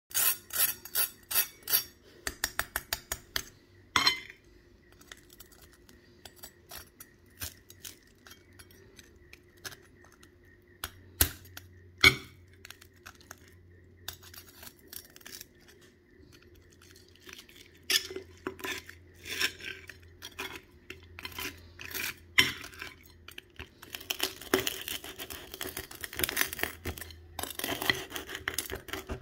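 Steel knife and fork cutting through crunchy roast pork skin on a ceramic plate: crackling crunches and sharp clinks of metal against the plate. A quick run of crunches comes at the start, a few single loud clinks follow, and dense crackling fills the last few seconds.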